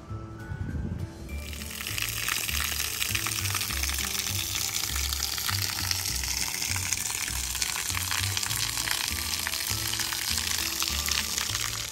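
Water pouring from an outdoor shower head and splashing onto a tiled floor: a steady hiss that starts about a second in and cuts off abruptly near the end. Background music with a steady bass line runs underneath.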